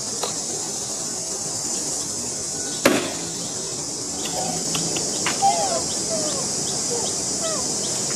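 Steady high-pitched insect buzz, with a single sharp knock about three seconds in. From about four seconds, short falling chirps and faint regular ticks join it.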